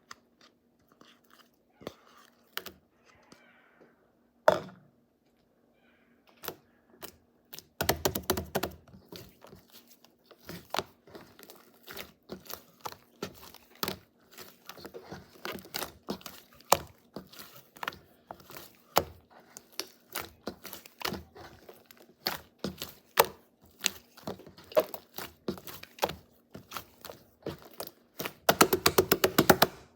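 Slime being squished and poked by hand, giving many sharp clicking and popping crackles. Sparse at first, with dense runs of rapid clicks about eight seconds in and again near the end.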